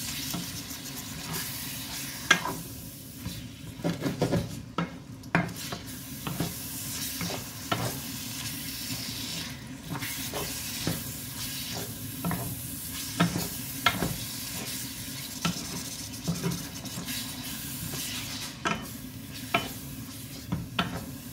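Ground pork sizzling in a frying pan while a wooden spoon stirs and scrapes through it, with irregular sharp knocks of the spoon against the pan.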